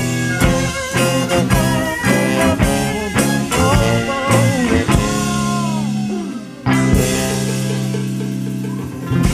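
Blues-rock band music with electric guitar and drums keeping a steady beat; about two-thirds through it drops out briefly, then comes back in on long held notes.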